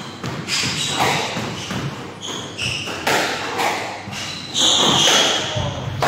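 Squash rally: a squash ball being struck by racquets and smacking off the court walls, as a series of sharp hits about a second apart, with short squeaks of court shoes on the wooden floor in between. The hits ring in the enclosed court.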